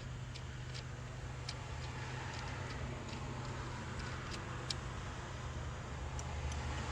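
Scattered sharp metallic clicks of a 10 mm socket wrench working the negative terminal nut on a car's auxiliary battery, over a steady low hum.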